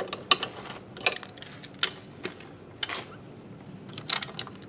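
Hand socket ratchet loosening a kickstand mounting bolt on a small motorcycle: scattered single clicks and metal taps, then a short run of quick ratchet clicks about four seconds in.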